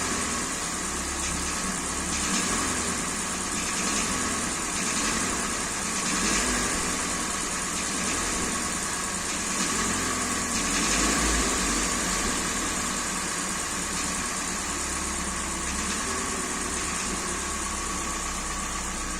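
Kia Sportage III engine idling steadily with a knock from a scored cylinder.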